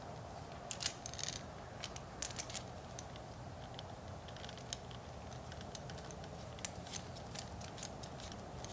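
Light scattered clicks and ticks of a high-pressure hose fitting being threaded onto a pressure washer's spray gun and handled, bunched about a second in and again a little past two seconds, then sparser, over faint steady background noise.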